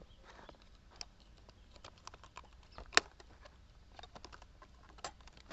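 Small metallic clicks and taps as contact strips are pried out of a motor starter with a tester screwdriver, with one sharp click about three seconds in.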